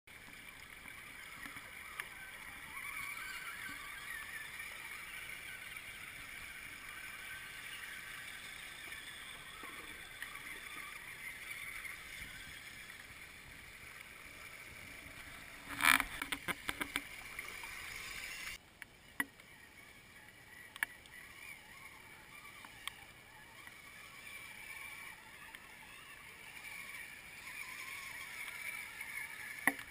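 Shallow stony creek water rushing and gurgling close to the microphone, with a loud knock and a quick run of clicks about halfway through. A little later the sound drops abruptly to quieter trickling water with scattered small clicks.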